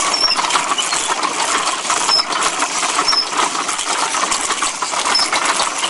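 Hand-cranked all-wooden machine running: its wooden gears, chains, sprockets and linkages clatter in a dense, rapid rattle of clicks. Short high squeaks come every second or two.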